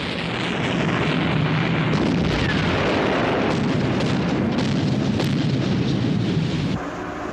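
A loud, sustained explosion-type roar with crackle, of the kind heard in combat footage. It starts suddenly and drops to a lower rumble near the end.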